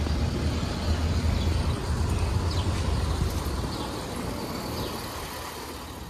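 Steady outdoor background noise dominated by a low rumble, with a few faint high chirps.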